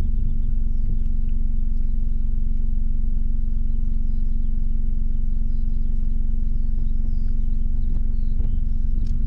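Ford Fiesta ST MK8's 1.5-litre three-cylinder EcoBoost engine idling steadily through a Scorpion valved cat-back exhaust with the GPF deleted, heard from inside the cabin with the windows down.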